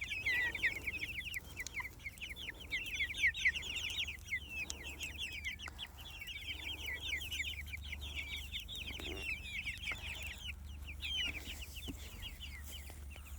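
A flock of young Jersey Giant chickens peeping, many short falling chirps overlapping, thinning out about ten seconds in.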